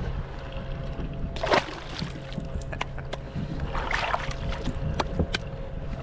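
Water sloshing against a kayak's hull, with a short splash about a second and a half in, another around four seconds, and a few sharp knocks near the end.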